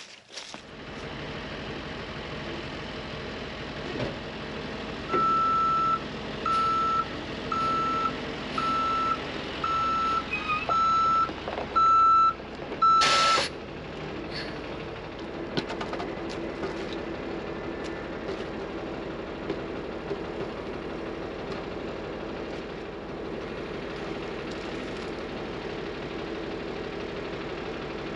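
Truck engine running while its backup alarm sounds a string of evenly spaced beeps as it reverses, about one a second. The beeping stops with a short, loud hiss of air, typical of truck air brakes, and the engine keeps running.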